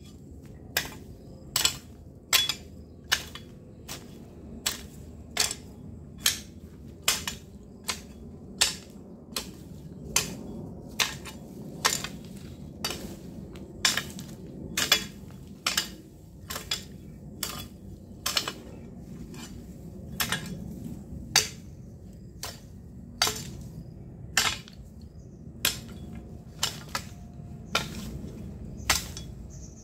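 A long-handled hoe chopping into hard ground, its metal blade striking soil and stones with a sharp clink at a steady pace of about one stroke every three-quarters of a second.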